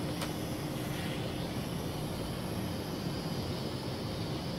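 Kai Deng K-60 X-Fighter quadcopter's motors and propellers running steadily in flight: an even buzzing hum.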